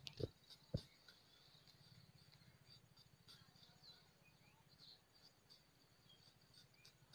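Near silence: two soft knocks in the first second as a knife works the shaved trunk of a wild date palm, then faint insect and bird chirps over a low steady hum.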